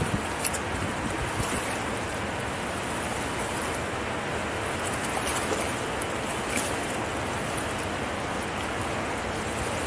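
Steady rushing of turbulent water churning in the outflow below a dam, with a couple of brief clicks.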